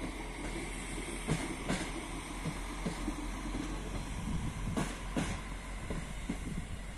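Diesel railcar rolling slowly past at shunting speed, its engine running steadily. Its wheels clack over rail joints in two quick pairs, about a second in and again near five seconds in.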